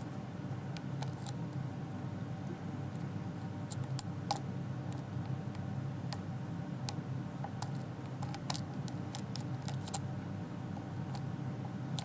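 Scattered, irregular light metallic clicks of a lock pick and tension wrench working the pin stack inside a Trioving 5633 high-security padlock during single-pin picking, over a steady low hum.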